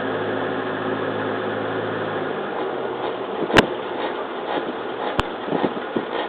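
Suzuki Jimny JB33 with its engine running steadily for the first couple of seconds, then fading under road noise. After that come irregular knocks and clunks, two of them sharp and loud, about three and a half and five seconds in: the abnormal noise from the front end.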